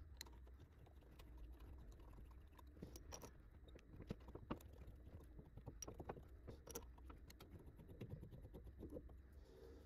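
Near silence with faint, scattered small metallic clicks and scrapes as steel M10 screws are threaded by hand through the front of a six-jaw chuck into the lathe spindle flange. Near the end the screws are turned with an Allen key.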